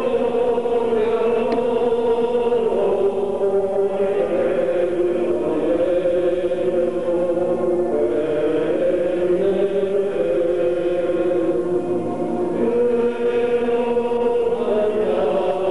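A choir singing a slow hymn together in long held notes that move from one pitch to the next.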